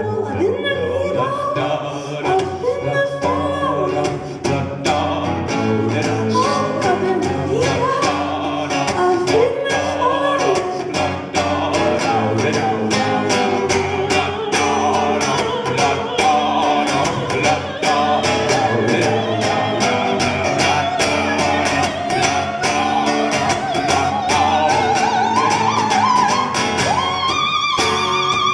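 Live pop music: a female voice sings a wordless melodic line full of slides over a rhythmic band accompaniment, climbing into a long, high held note near the end.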